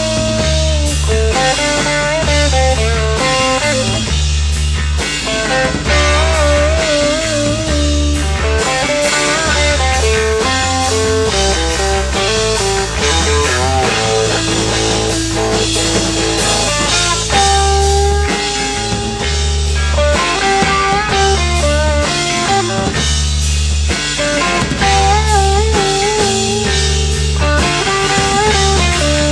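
Rock band playing live: an electric guitar plays a lead line of held, wavering bent notes over a repeating bass line and steady drums.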